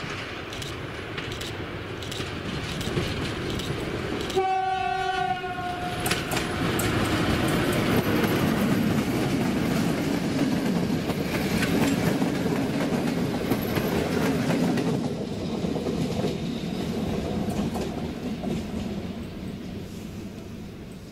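An SM42 diesel locomotive sounds one horn blast about four seconds in, lasting about a second and a half. Its engine and the passenger coaches then pass close by, with wheels clicking over the rail joints. The sound is loudest through the middle and fades toward the end.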